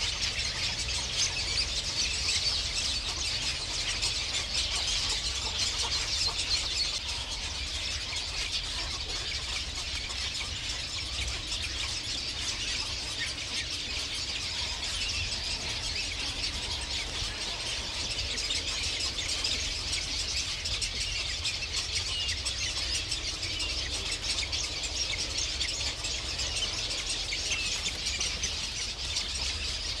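A dense, continuous chorus of many birds chirping and squealing together, with a low steady rumble underneath. It is a little louder for the first seven seconds or so.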